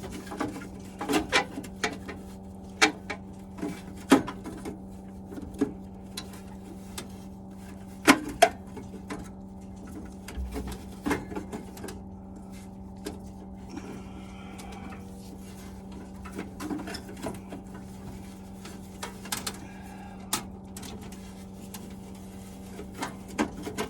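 Scattered clicks and knocks of hand tools and metal parts being handled while a Vaillant turboMAX gas boiler's fan assembly is taken apart, over a steady low hum. The loudest are two sharp knocks about eight seconds in.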